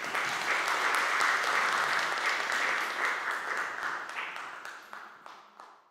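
Audience applauding. The dense clapping starts right away, holds steady, and fades away over the last few seconds.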